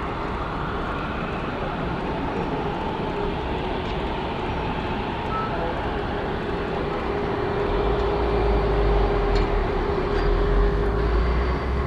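Rolls-Royce Trent 7000 jet engines of an Airbus A330-900neo running, a steady roar with a steady whine through it that grows louder with a deeper rumble about eight seconds in.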